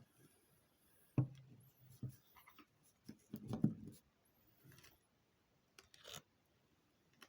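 A few irregular knocks, rubs and clicks of handling, close to the microphone, the loudest about a second in and around the middle.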